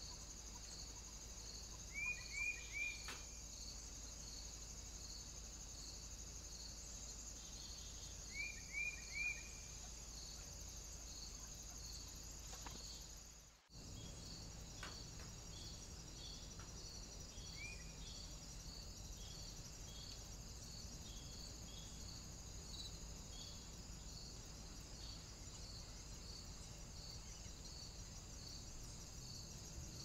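Insects chirring steadily in a high, evenly pulsing rhythm, with a bird calling over it: three quick falling notes about two seconds in, three more a little after eight seconds, and a single one near eighteen seconds. The sound drops out for a moment in the middle where two recordings are joined.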